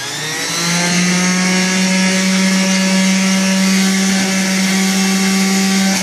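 Omega MegaMouth centrifugal pulp-ejection juicer running. Its motor whines up to speed in the first second, then runs at a steady, high-pitched drone.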